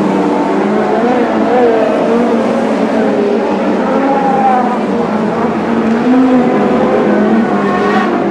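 A pack of Lightning Sprint cars, small winged dirt-track sprint cars, racing together. Several engines run at once, their pitches rising and falling as the cars go round.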